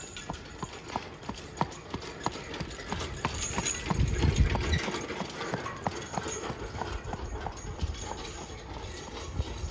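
Friesian horse's hooves clip-clopping on asphalt at a steady trot, about three hoofbeats a second, as it pulls a two-wheeled cart. A low rumble swells about four seconds in, when the cart passes closest.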